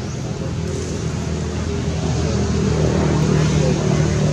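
A motor engine running steadily with a low hum, getting louder from about halfway through.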